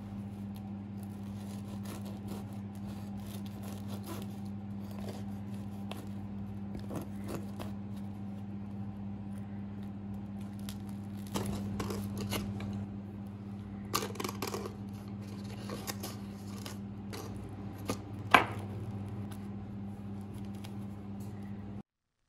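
A table knife cutting through a warm hot cross bun's crust and scraping butter onto the cut halves: soft crackles, tearing and scrapes over a steady low hum, with one sharp knock near the end.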